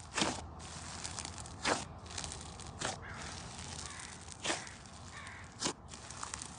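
Crunchy, fried-chicken-textured slime being squeezed, stretched and torn apart by hand: a steady fine crackling with five louder tearing snaps, about one every second and a half.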